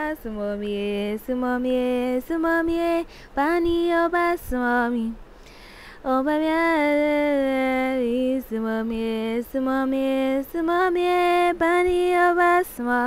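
A woman singing a tune unaccompanied, holding steady notes with a few sliding rises between phrases, broken by brief pauses.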